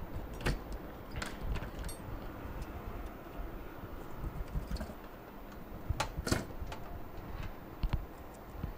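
Scattered clicks and light knocks from handling a laptop motherboard and multimeter test probes on a rubber work mat, with the strongest knocks a little past the middle and near the end.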